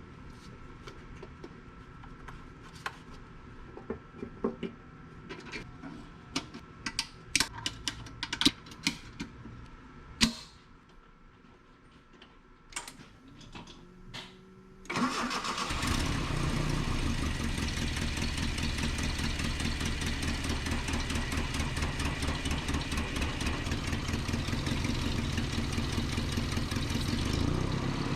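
A series of scattered clicks and knocks, then a short lull, then the 1988 Nissan D21's 2.4 L Z24 four-cylinder engine starts about halfway through and idles steadily, picking up slightly near the end.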